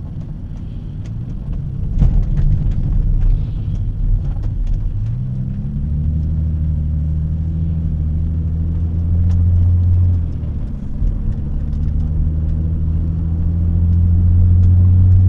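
Mercedes SLK 350's 3.5-litre V6 engine heard from inside the cabin while driving: a low steady drone that rises in pitch about five seconds in, eases briefly near ten seconds, then builds again under throttle. A single thump about two seconds in.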